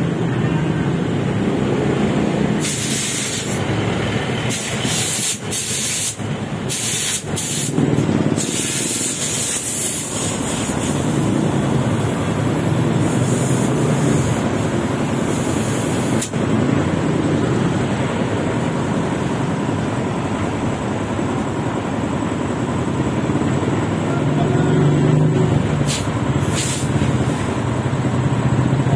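Compressed air hissing from an air hose in short bursts, several within the first ten seconds and a couple more later, over a steady background of shop noise.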